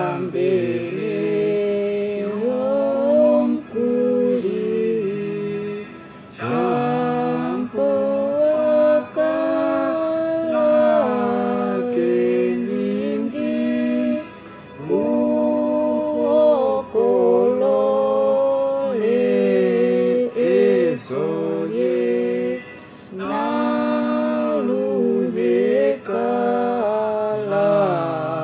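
A man and a woman singing a song together unaccompanied, in phrases of a few seconds with short breaks for breath between them.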